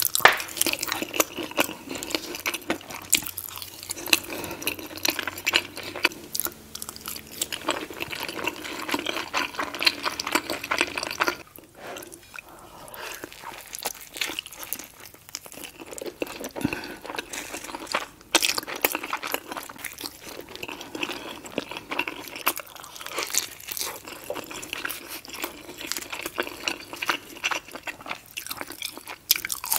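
Close-miked chewing: wet, smacking mouth sounds of eating soft breakfast hash potatoes and egg. About eleven seconds in the sound cuts to quieter bites and chewing of a tortilla-wrapped breakfast burrito.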